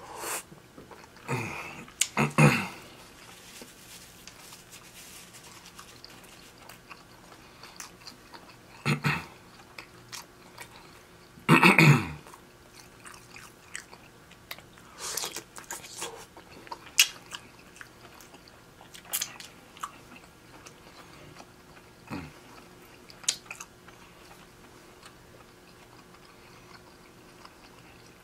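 Chewing and biting of seafood-boil food, with scattered louder crunching mouth sounds; the loudest come about two and a half and twelve seconds in.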